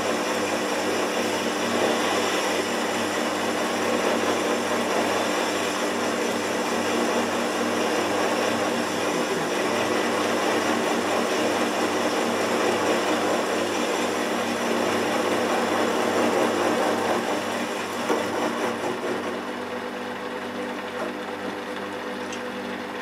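Small benchtop metal lathe running with a steady motor hum while the turning tool cuts metal from a large nut held in the chuck, throwing off chips. A few seconds before the end the cutting noise eases off and the lathe runs on more quietly.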